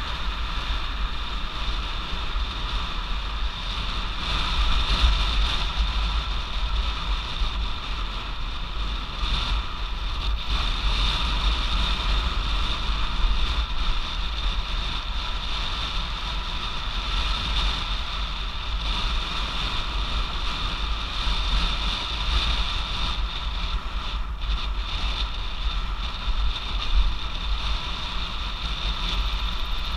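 Wind buffeting the microphone of a bike-mounted camera on an e-bike riding at speed, a steady low rumble with a constant high hum above it.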